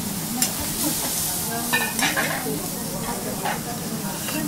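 Wagyu steak sizzling on a teppanyaki steel griddle: a steady frying hiss, with about five sharp clicks and scrapes of a metal spatula as the cubed beef is pushed onto a plate.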